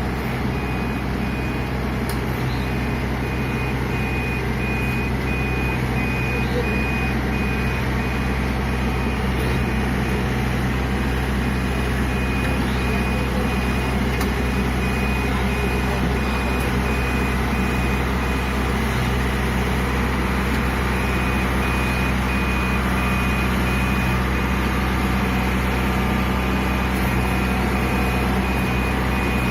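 A combine harvester's diesel engine runs steadily while its reversing alarm beeps in a fast, even series, pausing for a couple of seconds about two-thirds of the way through.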